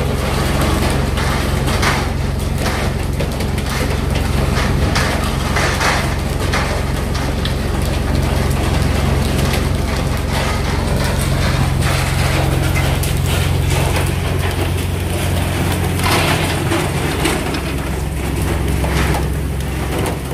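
A fishing boat's engine running with a steady low hum, overlaid by irregular knocks and clatter and a rushing noise from work on deck.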